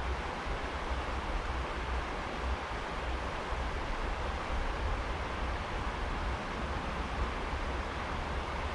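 Steady rushing outdoor noise with a heavy low rumble: wind buffeting the action camera's microphone.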